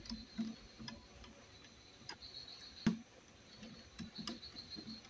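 Small screwdriver tightening a wire into a PCB screw terminal block: faint, irregular clicks and ticks as the tip turns the terminal screw, with one sharper click about three seconds in.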